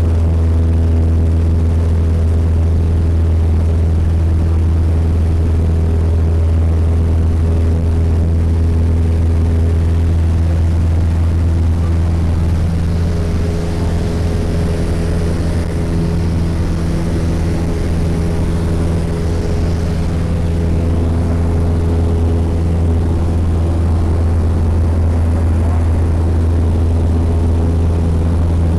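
Cessna light plane's piston engine and propeller droning steadily in cruise, heard from inside the cabin. Around the middle the level dips slightly and the air hiss rises for a few seconds.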